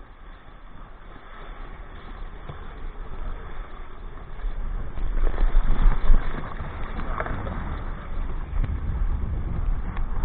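Strong wind buffeting the microphone, a deep rumble that grows louder about halfway through, with scattered knocks.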